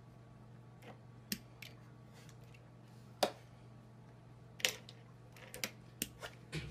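Irregular light clicks and taps of a kitten's paws and claws on a fish tank and its stand, about nine in all, the loudest about three seconds in, over a steady low hum.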